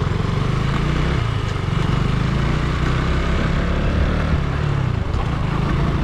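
Small motorbike engine running steadily while riding along at road speed, heard from on the bike with wind and road noise over it.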